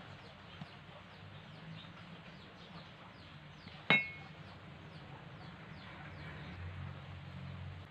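A single sharp metallic clink about four seconds in: a piece of steel angle iron knocked by hand on the concrete, ringing briefly. Under it, faint repeated high chirps and a low steady hum.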